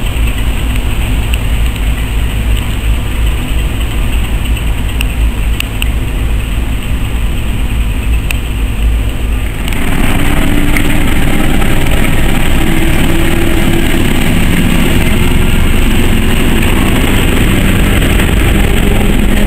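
A low rumble for about the first ten seconds, then a louder, steady sound of a diesel shunting locomotive hauling a train of coaches past. Its engine note rises slightly over the noise of the train running on the rails.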